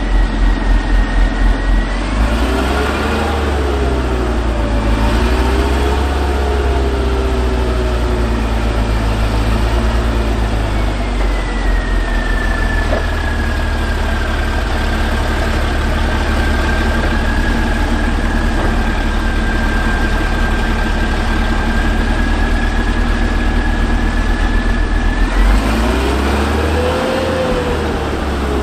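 The M8 High-Speed Tractor's Continental AOS-895-3 six-cylinder air-cooled petrol engine running steadily with a steady high whine over it. The engine pitch rises and falls a few times, about three and five seconds in and again near the end, as it is revved while the tractor manoeuvres.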